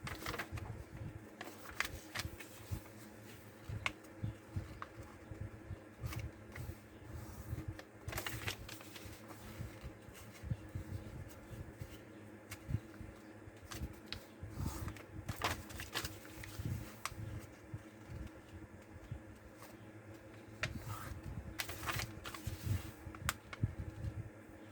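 Paper being folded and creased by hand, with irregular rustles and short crackles as the sheet is handled and pressed into folds.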